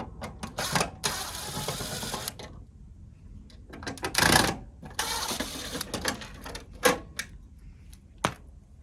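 Screws being driven out of the side panels of an all-in-one diesel heater: two whirring runs of about a second and a half each, one about a second in and one about five seconds in, with sharp clicks and knocks of screws and metal panel between them.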